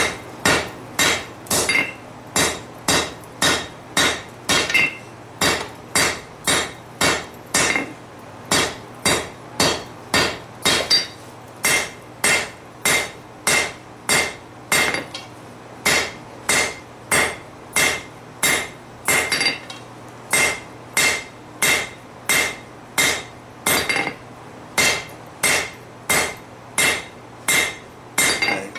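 Steady hand-hammer blows on a red-hot bar of 3/4-inch square steel against an anvil, about two a second, each with a short metallic ring: the taper being drawn out.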